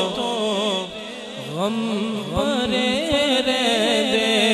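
A man singing a devotional song (naat) solo into a microphone, in long ornamented phrases whose pitch bends and wavers. There is a brief softer pause about a second in.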